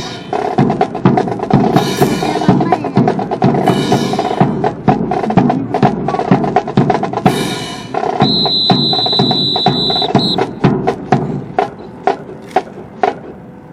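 Band percussion playing a driving drum rhythm with snare, bass drum and cymbal crashes. About eight seconds in, a high steady tone sounds for about two seconds. Then the drumming thins out to a few sharp separate knocks near the end.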